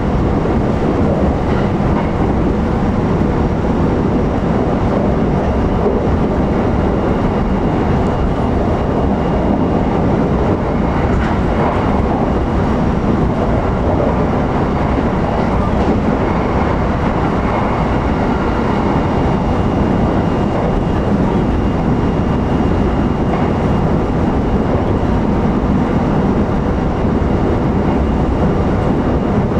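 Steady running noise inside a JR E129 series electric train's motor car at speed: wheels rolling on the rails with the hum of the traction equipment, a few faint steady tones over it.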